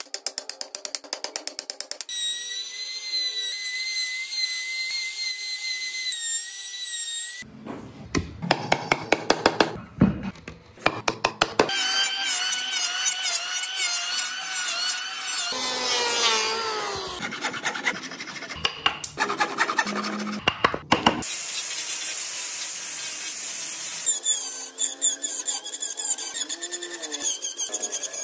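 A run of woodworking tool sounds cut one after another: quick repeated strikes of a chisel into the wood, the steady whine of an electric hand planer shaving the block, and the high whine of a small rotary carving tool near the end.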